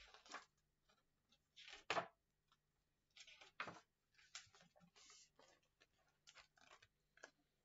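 Quiet handling of a paperback picture book as it is picked up and opened: soft paper rustles and light clicks, with a sharper knock about two seconds in, over a faint steady hum.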